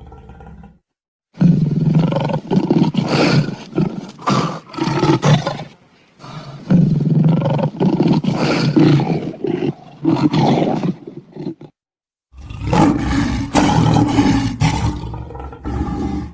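Lion roaring in three bouts of about four to five seconds each, separated by brief stretches of dead silence where the sound cuts off abruptly.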